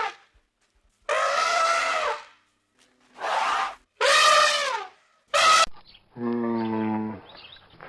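Animal calls: four short, high-pitched cries in turn with silences between, then one lower, steadier call of about a second near the end.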